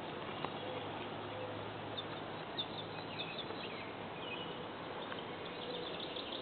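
A few short, high bird chirps about two to three seconds in, with a couple more brief calls a little later, over a steady hiss of background noise.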